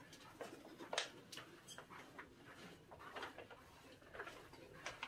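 Faint, irregular clicks and soft taps of footsteps along a carpeted corridor, against a quiet background.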